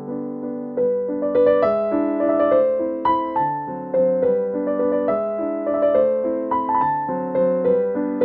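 Background piano music: a melody of struck notes, each fading after it is played, over lower chords.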